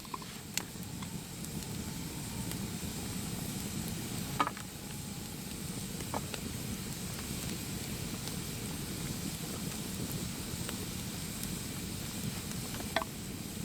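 Food sizzling steadily in a pan, with a few sharp clicks and pops now and then.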